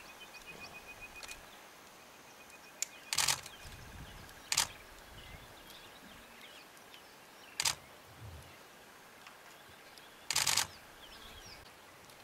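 Camera shutters clicking about four times, a few seconds apart, the last a short rapid burst. Under them is a quiet bush background with faint high chirps and a fine rapid ticking in the first second or so.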